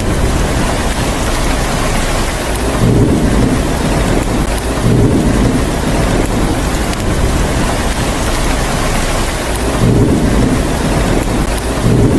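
Steady heavy rain, with low thunder rumbles swelling up briefly about four times.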